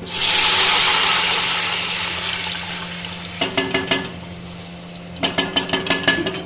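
Water poured into hot oil and browned fried onions in a metal pot, setting off a loud hiss and splash that starts suddenly and dies down over a few seconds. A slotted metal spoon then clinks against the pot in two short runs as the mixture is stirred.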